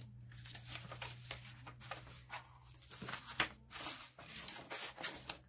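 Sheets of paper rustling and sliding as a stack of journal pages is handled, in irregular light strokes.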